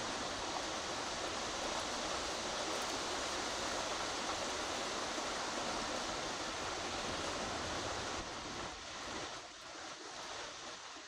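Steady rain falling, an even hiss that drops somewhat about eight seconds in.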